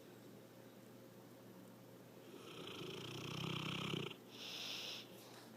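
Snoring: one long in-breath with a low rattle that builds over nearly two seconds, starting a little past halfway, followed by a shorter hissing out-breath.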